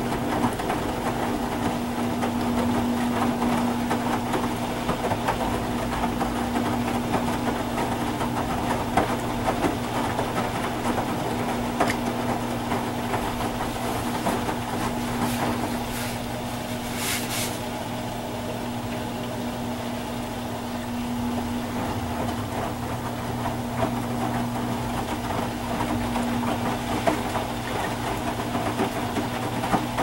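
Electrolux LFE10 front-load washing machine running its wash cycle: the inverter motor turns the drum with a steady low hum, with a few light clicks over it.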